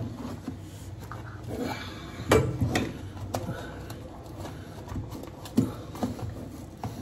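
Wallpaper being pressed and rubbed flat by hand against the wall behind a sink: paper rustling with a few sharp knocks, the loudest a short cluster about two and a half seconds in.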